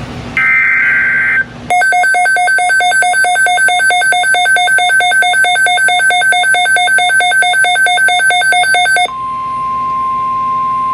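An emergency alert coming in over a weather radio: a short warbling burst of digital SAME header tones, then an electronic alert alarm beeping rapidly and evenly for about seven seconds. About nine seconds in it switches to the steady single-pitch NOAA Weather Radio warning alarm tone.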